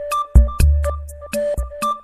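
Background music with an electronic beat: regular drum hits over a bass line and a repeating melody.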